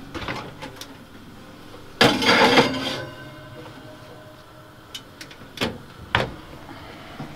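A cooker's oven door pulled open with a loud metallic rattle lasting about a second, then, after a pause, a few sharp knocks as the plate goes in and the door is pushed shut.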